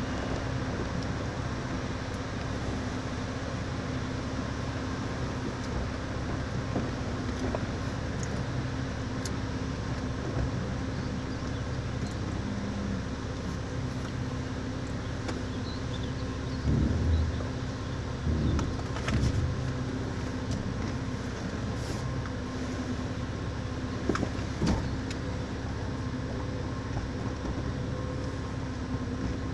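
A motor vehicle running steadily, a constant hum with road-like noise, with a few louder knocks a little past halfway and again near the end.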